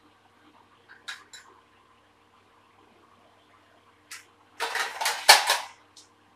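Steel kitchenware clattering: a few light clinks of a steel spoon, then a stainless steel lid rattling against a steel pot in a quick run of loud metallic strikes near the end.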